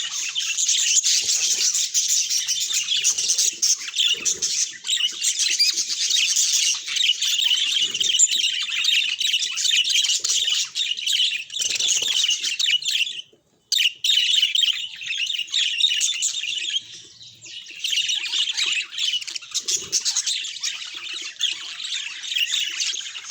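Budgerigars chattering continuously with rapid chirps, warbles and squawks, breaking off briefly about halfway through.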